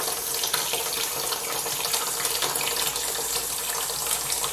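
Homemade water aspirator vacuum pump built from brass plumbing fittings, running: high-pressure water rushing steadily through the nozzle and out the discharge hose as it pulls a vacuum on the gauge.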